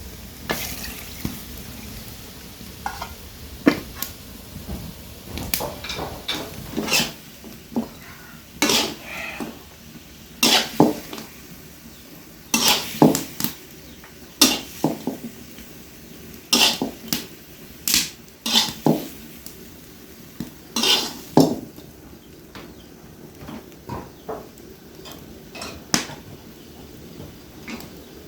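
Kitchen clatter: dishes and utensils knocking together in irregular clinks and knocks, busiest and loudest in the middle and thinning out over the last few seconds.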